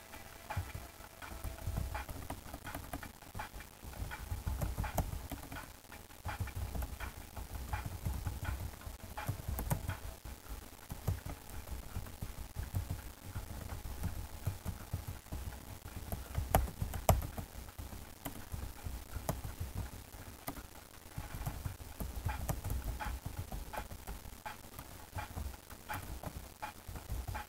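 Computer keyboard keys clicking irregularly as someone types, with dull low thuds under the clicks.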